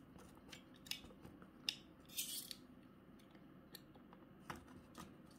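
Faint clicks and taps of a cardboard box being handled and opened, with a short scraping rustle about two seconds in.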